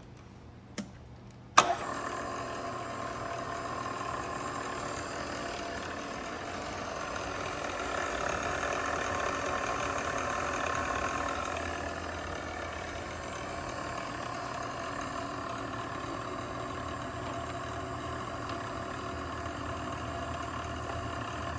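Royal 618M hydraulic surface grinder switched on with a sharp click, then its motors running steadily with a many-toned hum and whine, swelling a little about halfway through.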